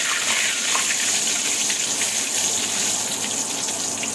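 Panch phoron, a bay leaf and dried red chillies sizzling in hot mustard oil in a wok, with small crackles through the steady sizzle.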